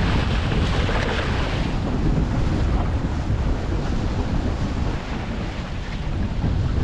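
Wind buffeting the microphone over water rushing and splashing along the hull of a small wooden canoe yawl under sail in choppy water, with the splashing heavier in the first couple of seconds.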